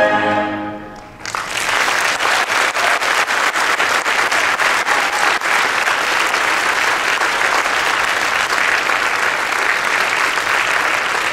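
A choir's last held chord fades out in the first second, then a hall full of people breaks into steady applause.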